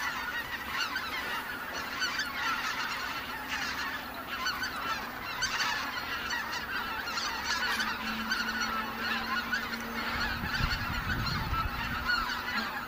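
A large flock of greater white-fronted geese calling in flight: a dense, unbroken chorus of many overlapping high calls.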